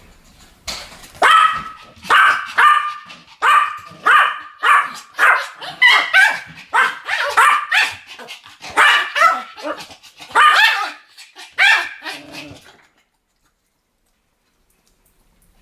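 Pomeranians barking in a quick series of sharp, high-pitched yappy barks, about one to two a second. The barking stops a few seconds before the end.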